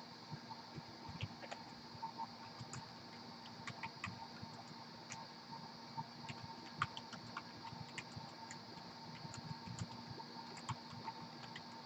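Computer keyboard typing: irregular clicks of keys in quick runs, over a faint steady hum.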